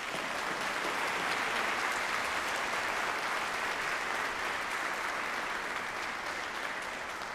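Audience applause in a hall: a dense, steady clapping that builds in the first second or two and then slowly dies away.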